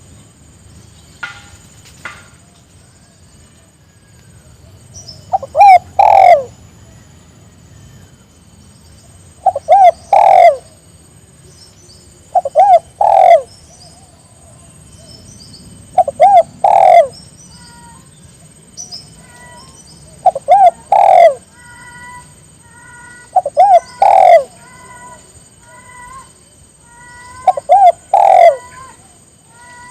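Spotted dove cooing its song over and over, a short phrase of a few low coo notes about every three to four seconds, seven times. Faint short chirps from another bird come in during the second half.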